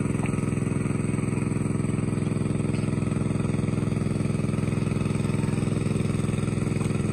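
Small engine of a water pump running steadily at one even speed, draining the pond.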